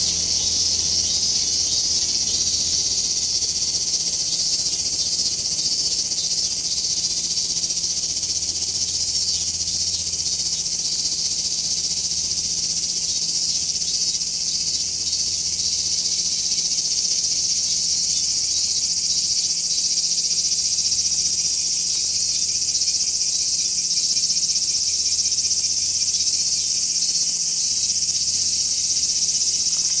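Cicadas singing in a loud, unbroken high-pitched chorus: robust cicadas (minmin-zemi, Hyalessa maculaticollis) together with large brown cicadas (abura-zemi, Graptopsaltria nigrofuscata), a steady summer drone with no pauses.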